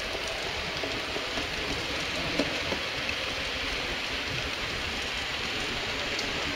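H0-scale model freight train, a diesel locomotive pulling log-laden stake wagons, rolling past on the track: a steady whirring rattle of wheels and motor, with a couple of light clicks about two and a half seconds in.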